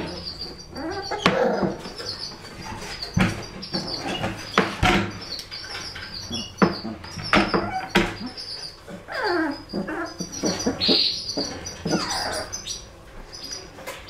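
Four-week-old puppies whimpering and yelping, with several wavering whines in the second half. Scratching and sharp knocks run throughout as they paw at the wooden sides of their box.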